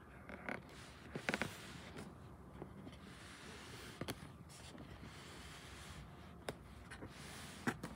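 Faint handling sounds: a few light taps and scrapes of fingers on a cardboard shoebox and sneakers, the sharpest tap near the end.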